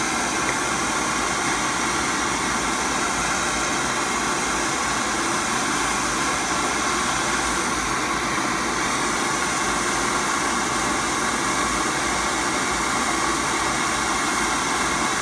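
Propane torch flame burning steadily, a constant even hiss, as it heats a copper bus-bar tip clamped to the torch to melt high-temperature lead-free solder.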